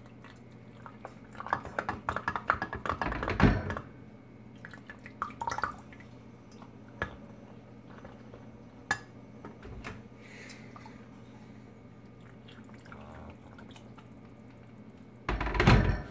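Hot water poured from a glass electric kettle into a ceramic mug for about two seconds, ending in a thud. Then come a few scattered clinks of a stirrer against the mug, and a short louder clatter near the end.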